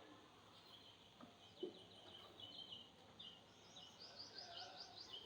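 Sparrows chirping faintly in a run of quick, short chirps, with a higher, faster series near the end. A single soft knock about one and a half seconds in.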